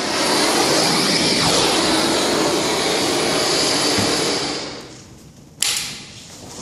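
Hand-held propane gas torch running at full flame with a loud, steady rushing hiss for about five seconds, fading out when it is shut off. A single sharp click follows near the end.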